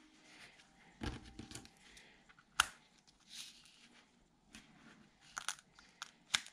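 Roll of foam adhesive tape being pulled off, stuck down on paper and snipped with scissors: scattered soft crackles and clicks, with a sharp snip about two and a half seconds in.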